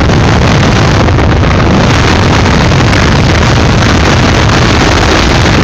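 Loud, steady wind rush over the microphone mixed with the engine of a Kawasaki Ninja 650 parallel twin, cruising at high speed, about 155 to 160 km/h.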